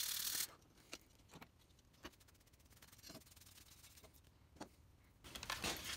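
Hand-sanding a steel lawnmower blade with a sanding block: a short gritty stroke right at the start, then faint scattered rubs and light taps, and rubbing again starting near the end.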